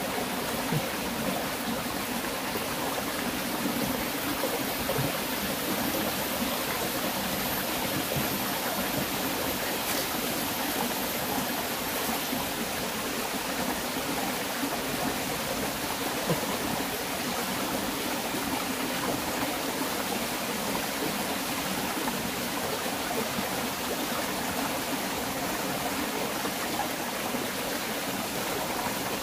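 Shallow rocky stream flowing steadily over stones, an even rush of water.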